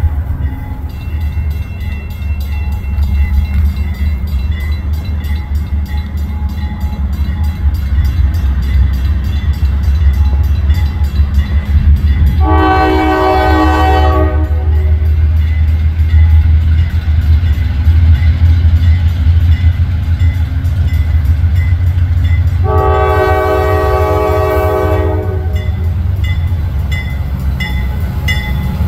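Diesel freight locomotive drawing its train slowly past, its engine running with a deep rumble while its bell dings regularly. Its multi-chime air horn sounds twice, a short blast a little before halfway and a longer one about two-thirds of the way through.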